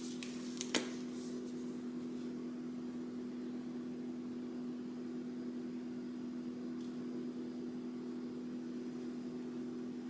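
A steady low electrical hum, as from a fan or kitchen appliance, with two light clicks in the first second.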